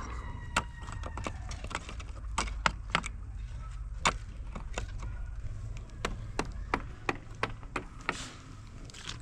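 An irregular series of sharp knocks or strikes, about three a second, like blows of a hand tool on wood or another hard material.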